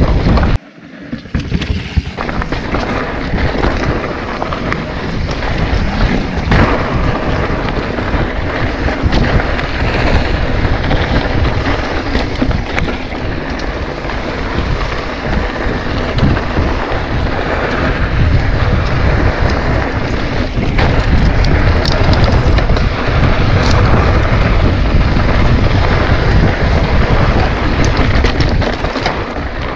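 Wind buffeting the microphone of a handlebar-mounted camera on a mountain bike, with knobby tyres rolling over a dirt trail and the bike rattling over bumps. The sound drops out briefly about a second in.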